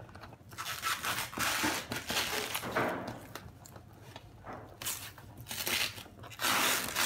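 Plastic cling film being pulled and ripped off a cardboard box, crinkling and tearing in irregular bursts.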